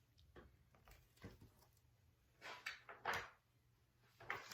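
Faint rustling and a few soft knocks from a picture book being handled and its pages turned.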